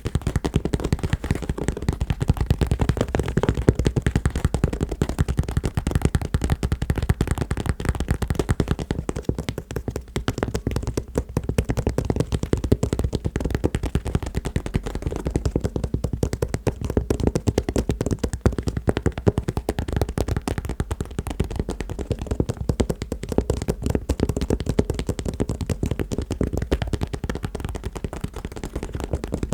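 Fast tapping on shoes with the fingers: a continuous run of rapid, dull taps.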